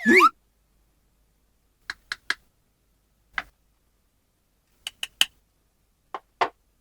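A short springy cartoon 'boing' sound effect with gliding pitch at the very start, then sharp light clicks of small plastic toy pieces being handled and set down, in small groups: three about two seconds in, one, then three, then two near the end.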